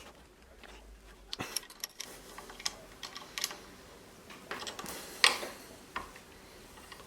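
Irregular light clicks and knocks, with the loudest knock about five seconds in.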